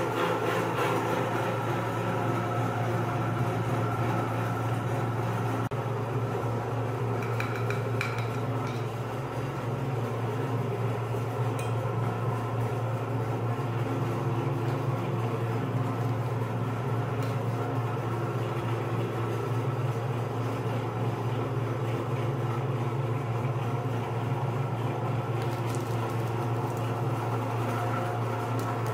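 Electric meat grinder's motor running steadily with a low, even hum while frozen ice cream is fed through the auger, with a few faint clicks.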